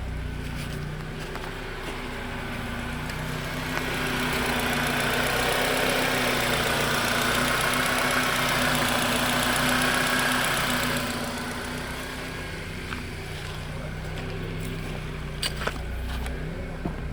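Honda Accord's engine running steadily, with a louder, hissier stretch of about seven seconds in the middle and a few sharp clicks near the end.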